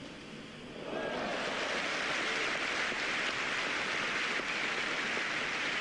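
Stadium crowd applauding. The applause breaks out suddenly about a second in and then holds steady.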